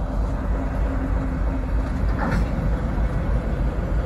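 Rail wagons loaded with wheelsets rolling slowly along the track behind a ChME3 diesel shunting locomotive: a steady low rumble, with a brief higher note about two seconds in.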